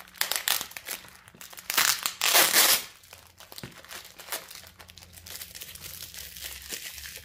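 Clear plastic kit packaging crinkling and crackling as it is handled and opened, with a louder rasp lasting about a second around two seconds in as the wrapping is torn open.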